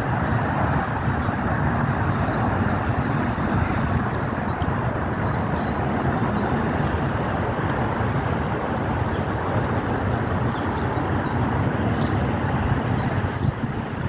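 Wind buffeting the microphone: a steady, fairly loud rush with a choppy, rumbling low end.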